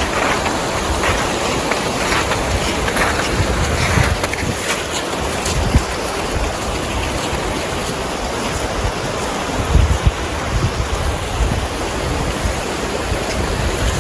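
Wind buffeting the microphone in a steady rush, with a stronger low gust about ten seconds in.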